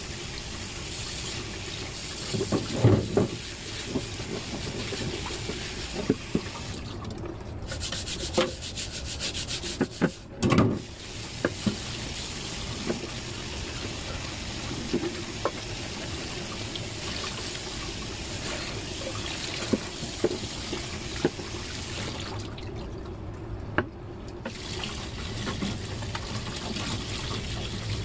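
Tap water running into a kitchen sink, with rubbing and a few knocks as raw chicken is washed and scrubbed. The running water stops briefly twice.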